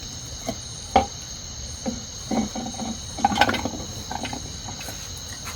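A steady chorus of crickets, with a few scattered knocks and clatters, the busiest stretch about two to three and a half seconds in.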